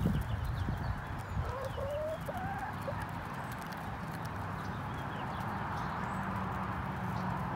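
Hens clucking softly while feeding, with a few short rising trill-like calls about a second and a half in, and faint light taps of beaks pecking at scattered grain.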